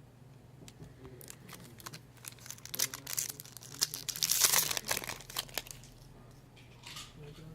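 Plastic-foil Magic: The Gathering booster pack wrapper crinkling in the hands, with a louder ripping burst about four seconds in as the pack is torn open.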